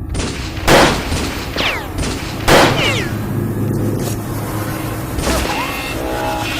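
Edited boom and gunfire-style sound effects: two loud hits about two seconds apart, each trailed by falling whistling tones, over a constant rumbling bed. Near the end, steady held tones lead into electronic intro music.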